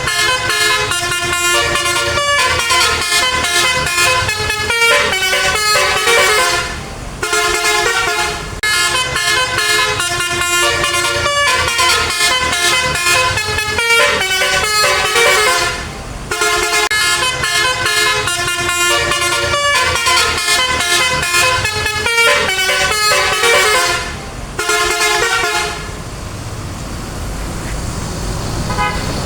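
A bus's Basuri telolet horn, a multi-tone musical horn, playing a repeating melody of short stepped notes in phrases with brief breaks. The melody stops about 26 seconds in, leaving traffic noise.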